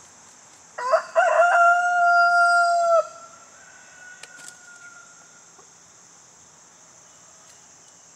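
A young rooster (cockerel) crows once, about a second in: a few short rising notes, then a long held note that breaks off after about two seconds. This is one of his first crows, the sign that the cockerel is maturing. A fainter, higher drawn-out call follows.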